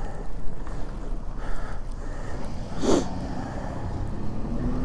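Steady low rumble and wind noise on the microphone while riding an e-bike through a snowstorm, with one short snort-like breath from the rider about three seconds in.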